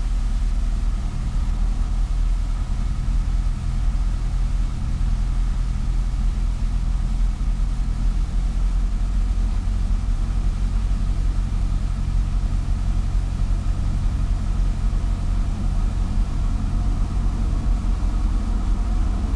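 A Cessna 172S's four-cylinder Lycoming engine and propeller run steadily at low power, heard from inside the cabin.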